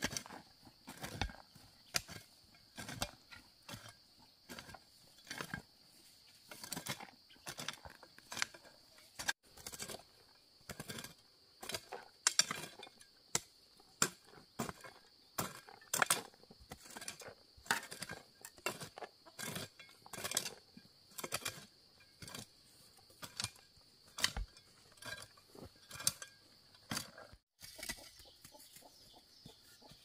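Irregular knocks and clicks, several a second at times, over a steady high-pitched insect drone.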